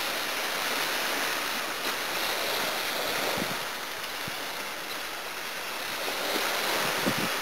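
Small sea waves breaking and washing up a sandy beach: a steady surf wash.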